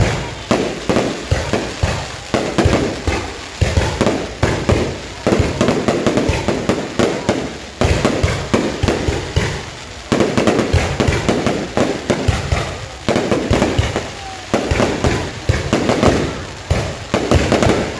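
Continuous rapid crackling and popping, many sharp bangs a second, coming in loud surges that each start abruptly every second or two.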